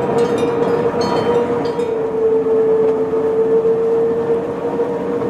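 Pilatus Railway electric cogwheel railcar running, with a steady whine over a continuous rumble. A few short high squeaks come in the first two seconds.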